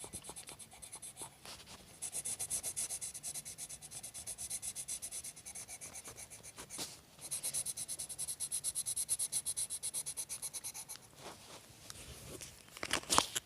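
A drawing tool rubbing on paper in rapid, rhythmic back-and-forth strokes, with short pauses between runs. A few louder knocks come near the end.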